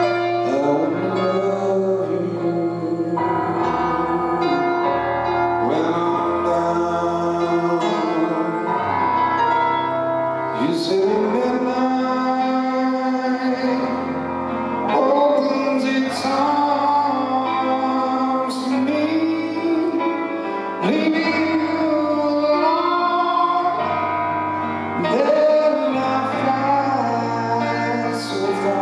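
A male singer's live vocal of a slow song, with long held, bending notes, over sustained keyboard chords and bass notes in a large hall.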